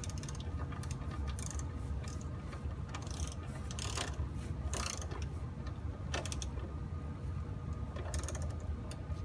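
Ratchet of a torque wrench clicking in short irregular runs as a transmission bolt is tightened to 10 foot-pounds, over a steady low hum.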